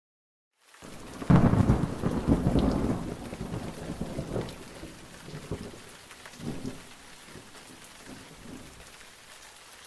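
Thunderstorm: thunder breaks in just before a second in, loudest over the next two seconds, then rolls on in weaker rumbles and fades, with rain falling beneath it.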